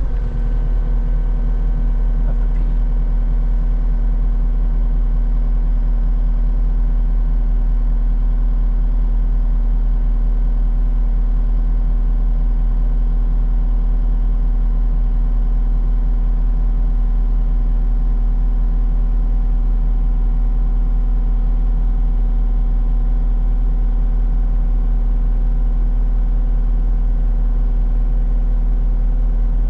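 Skid steer engine running steadily at a constant speed, a loud even drone with a steady hum and no change in pitch.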